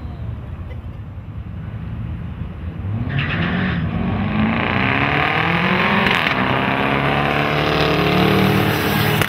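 Drag-racing engines, including a Ford F-150 SVT Lightning pickup's, rumbling low at the starting line, then launching hard about three seconds in and revving up, rising in pitch as they accelerate down the strip.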